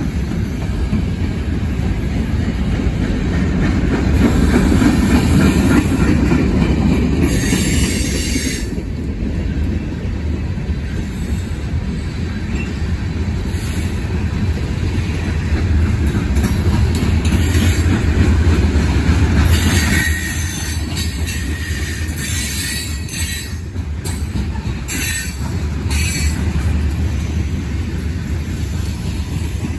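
Freight cars of a Norfolk Southern train rolling slowly past: a steady rumble of steel wheels on rail. High-pitched wheel squeal rises about seven seconds in, and again in several bursts from about twenty seconds in.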